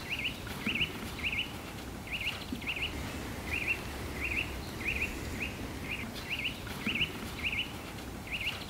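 Small songbird calling over and over: a short zigzag chirp about twice a second, in runs with brief pauses.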